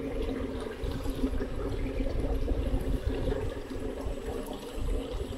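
Ditch water flowing and trickling steadily, with a low rumble underneath.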